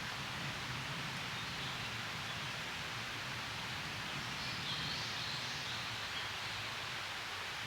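Steady outdoor background hiss, with a few faint high chirps between about four and six seconds in.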